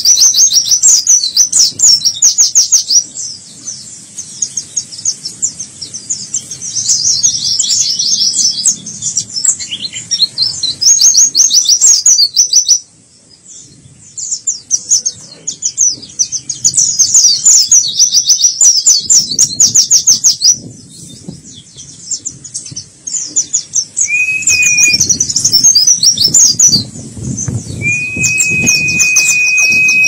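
Caged white-eye (pleci) singing a fast, high, chattering song in long runs of rapid notes, with a brief lull about 13 seconds in. Twice in the last third a single steady high whistle note is held for a second or two.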